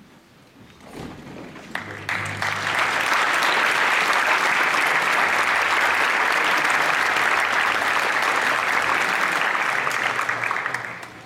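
Audience applauding, building up over the first two seconds, holding steady, then dying away quickly near the end.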